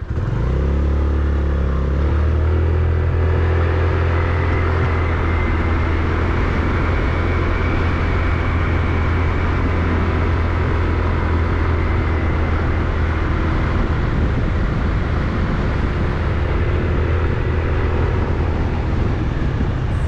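Motorcycle engine running as the bike is ridden along a road, its revs rising in the first second or so and then holding steady.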